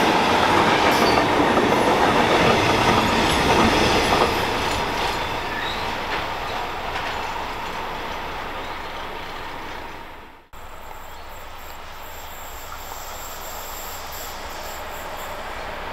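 Container freight train's wagons rolling past close by, with a steady squealing tone from the wheels; the sound fades from about four seconds in as the last wagons pass and draw away. About ten seconds in it cuts off abruptly, followed by the quieter, slowly growing rumble of another freight train approaching.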